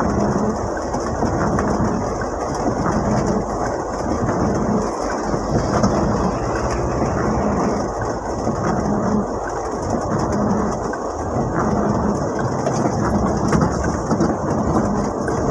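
Steady rumble and hiss of a Mitsubishi L300 van's cabin under way, engine and road noise, with a low hum that comes and goes.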